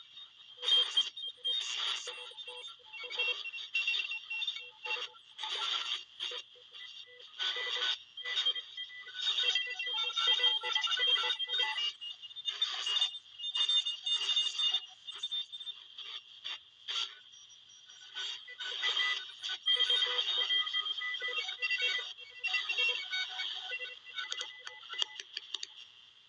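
Shortwave radio tuned around 14 MHz, sounding out weird noises: irregular bursts of hiss and warbling tones that come and go every second or so, thin and with no bass.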